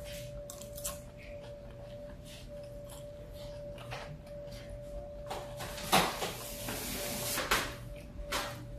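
Close-up eating sounds: chewing with small mouth clicks, then, about six seconds in, a louder stretch of a plastic fork scraping and scooping rice in a foam bowl, lasting about a second and a half. A steady faint hum runs underneath.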